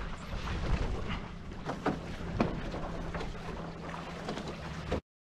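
Water splashing and slapping against the hulls of a Viper F16 sailing catamaran under way, over a low rumble of wind on the microphone, with a scattered splash every second or so. The sound cuts off suddenly near the end.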